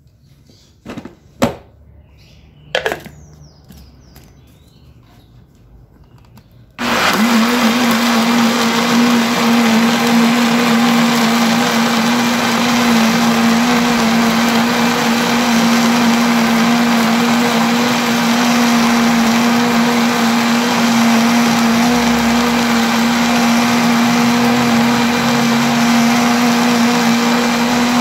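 A few short knocks and clicks, then a kitchen blender switches on about a quarter of the way in. It runs loud and steady at one speed, blending a full jar of eggshells, bone meal and castor cake in fertiliser water.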